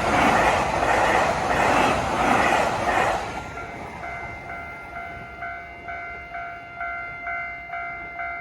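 A train passes over a JR railway level crossing, its rushing rail noise loudest for about the first three seconds. It then fades and leaves the crossing's warning bell ringing on its own, a repeated ding about twice a second.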